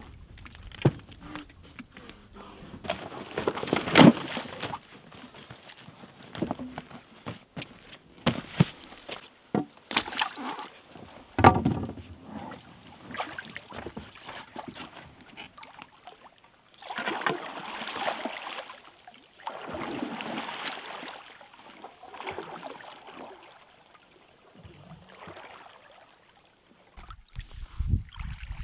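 A folding canoe being handled and launched from a rocky shore: a string of sharp knocks and clunks of gear and hull in the first dozen seconds, then water sloshing and splashing in several swells as the canoe is waded through the shallows. Paddle strokes in the water come near the end.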